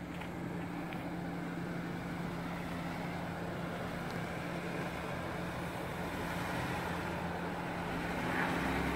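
2015 Jeep Wrangler JK's 3.6-litre V6 running at low, steady revs as the Jeep crawls slowly forward off-road, getting a little louder near the end as it comes closer.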